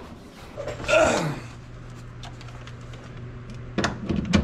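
A man's short grunt about a second in, then a low steady hum, and a few sharp metal knocks near the end as a cordless power tool is set against the rear shock's mounting bolt.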